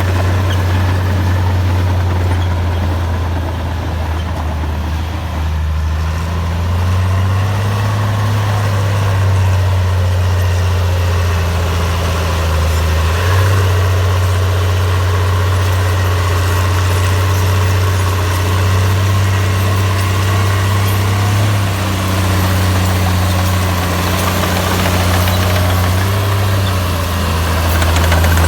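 Komatsu bulldozer's diesel engine running steadily at a deep, low pitch that shifts a little up and down every few seconds.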